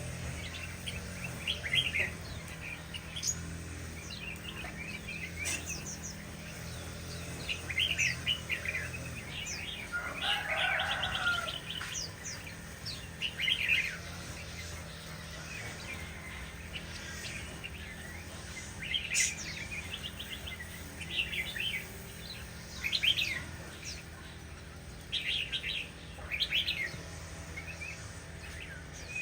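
Shama bird calling in short chirps and brief whistled phrases, about fifteen spread irregularly with a quieter spell midway, over a steady low hum.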